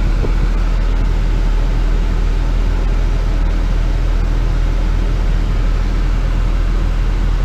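JCB Fastrac 3230 tractor's diesel engine running steadily, heard from inside the cab.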